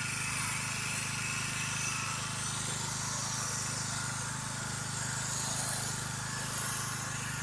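A 4200 psi, 4 gpm gas-engine pressure washer running steadily, with the even hiss of its spray as soap is sprayed onto vinyl siding.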